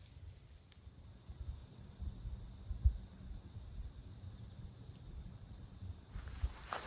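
Insects calling in a steady high drone, over irregular low thumps of a hiker walking. About six seconds in, the footsteps and the insect sound both get louder.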